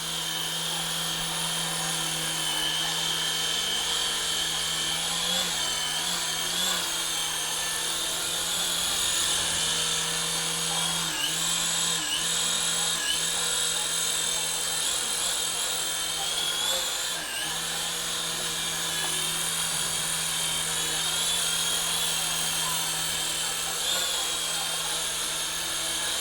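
SYMA S50H toy RC helicopter's small electric motors and rotors whirring in flight: a steady high whine that dips briefly in pitch several times as the throttle changes.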